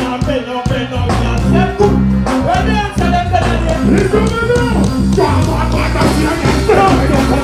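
Dancehall music with a heavy, pulsing bass beat and a singing voice over it.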